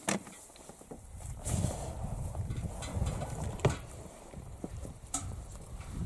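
Rustling and shuffling of two men climbing into a rubber inflatable boat and loading a metal bucket, with a few sharp knocks spread through.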